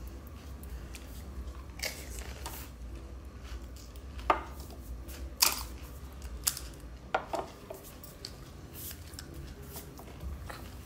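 Crisp fried puri shells cracking: about half a dozen sharp, short cracks, the loudest about four and five and a half seconds in, as the hollow puris are broken open and crunched, over a low steady hum.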